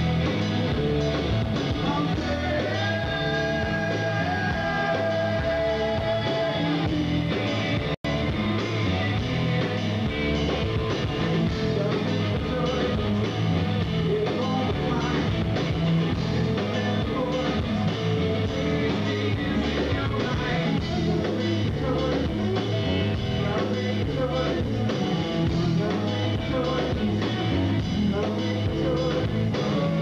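A live rock band playing: distorted electric guitars, bass and drums, with a singer. The sound cuts out for an instant about eight seconds in.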